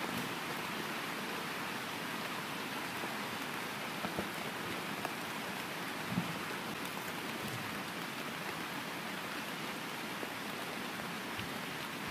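Steady rain falling, with a few louder drops striking close by, about four and six seconds in.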